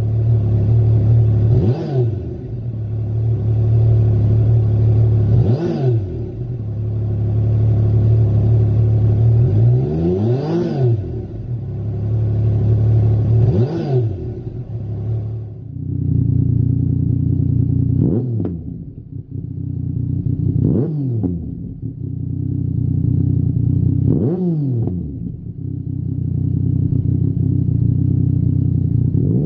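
Yamaha MT-09 Tracer's 847 cc inline three-cylinder engine idling steadily and revved in about seven short throttle blips, each a quick rise and fall in pitch. About halfway through the sound changes from the short standard silencer to a Lextek OP1 aftermarket silencer, with a different idle note.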